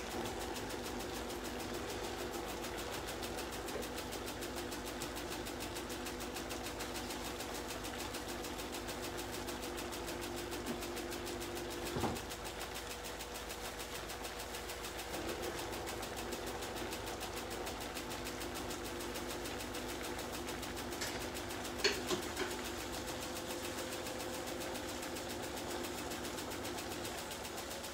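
Steady hum of a small motor, several low tones held level, with a knock about twelve seconds in and a couple of faint clicks about twenty-two seconds in.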